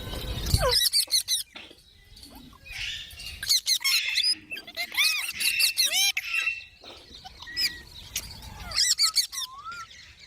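Baby green parrot chirping and squawking: quick runs of short, high calls that slide up and down in pitch, coming in several bouts with short pauses between.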